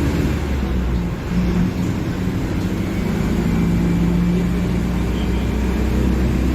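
Diesel engine of a Mercedes-Benz OF-1721 Bluetec 5 bus running, a steady low drone that dips briefly and picks up again about a second in.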